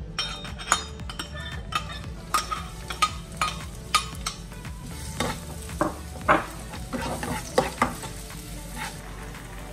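Minced garlic and chilli sizzling in hot oil in a nonstick frying pan, with a spatula repeatedly clicking and scraping, first against the dish as the garlic is pushed off it, then against the pan as it is stirred.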